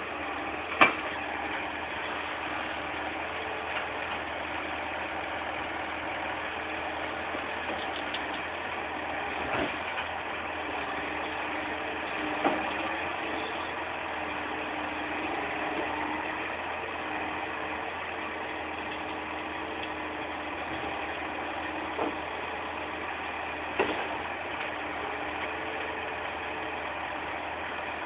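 Volvo log truck's diesel engine running steadily to power its hydraulic loading crane, its pitch wavering slightly under load. A few sharp knocks from logs and crane during loading, the loudest about a second in.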